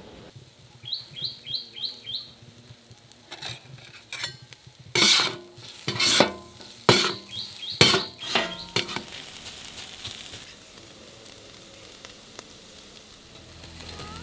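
A pair of metal kottu blades chopping on an iron griddle plate: small ringing clinks, then a run of loud, irregular metal-on-metal clanks as vegetables are chopped in hot oil. The clanks die away to a quieter sizzle near the end.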